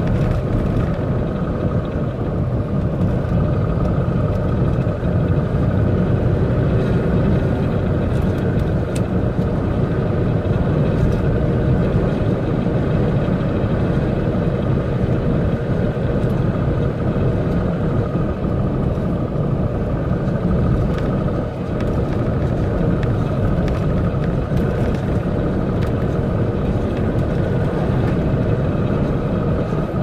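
Steady cab noise of a MAN concrete mixer truck driving along: engine drone and road noise, even throughout.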